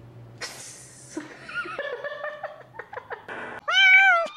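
A cat meows once, loudly, near the end, a single call that rises and falls in pitch. It is preceded by a few softer, short squeaky sounds.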